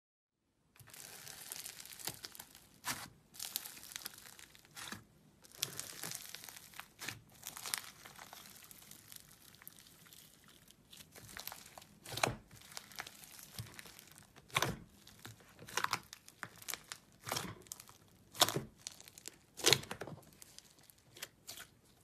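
Slime with chunky pieces mixed in being pressed and squeezed by hand, giving a crackly hiss broken by many sharp clicks and pops.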